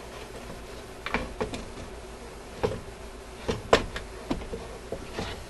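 Radio chassis being slid back into its wooden cabinet: a handful of irregular knocks and scrapes of metal against wood, the loudest a sharp knock about three-quarters of the way through.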